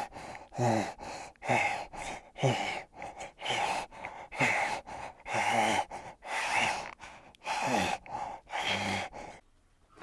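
Spotted hyena giving a series of airy, breathy calls, about one a second, each with a low note that falls in pitch; the series stops shortly before the end.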